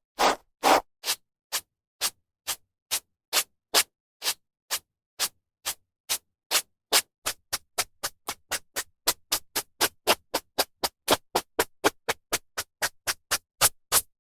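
A hairbrush drawn through hair in repeated short strokes, each a brief rustling swish with silence between. The strokes come about two a second at first and quicken to about four a second in the second half.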